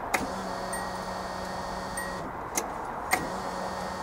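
Electric fuel pump priming on a timed key-on cycle from the MegaSquirt ECU: it runs with a steady hum, stops a little over two seconds in, and after a click starts running again as the ignition key is cycled to build fuel pressure. Sharp clicks of the key and relay mark the starts.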